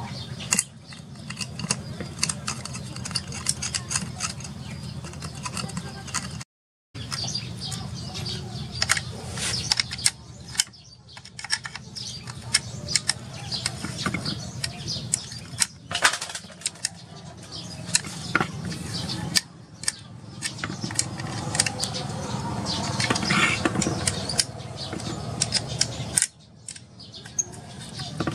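Many small metallic clicks and scrapes of a spanner working the bolts on a submersible water pump's housing clamp, over a steady low hum.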